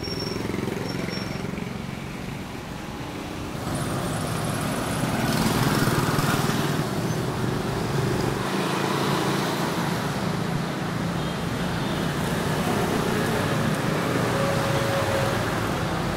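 Street traffic: motorbikes and cars running by. The steady traffic noise grows louder about four seconds in.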